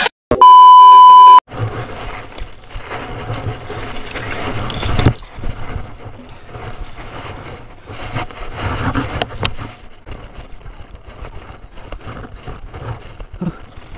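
A loud electronic beep, one steady tone about a second long, just after the start. Then a Thrill Ravage 4.0 hardtail mountain bike on a dirt trail: tyre rumble and rattling over rough ground with many small knocks and a sharp knock about five seconds in, then lighter clicking and rustling as the bike pushes into thorny brush.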